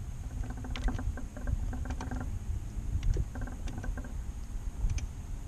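Fishing reel being cranked, its gears whirring in two spells as a crankbait is retrieved, over a steady low wind rumble on the microphone and scattered light clicks.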